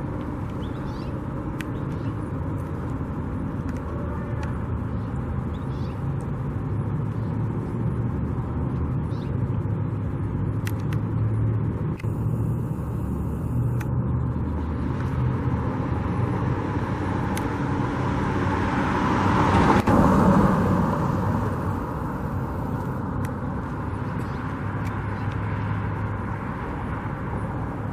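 Steady rumble of motor vehicle traffic with engine hum, swelling as one vehicle passes loudly about twenty seconds in, then easing back.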